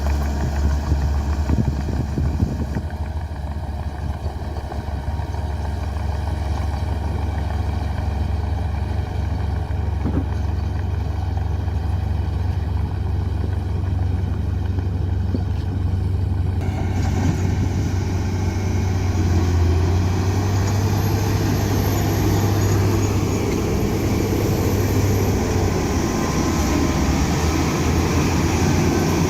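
Komatsu D41P bulldozer's diesel engine running with a steady low drone. About two-thirds of the way through, a brighter, fuller noise joins it and carries on to the end.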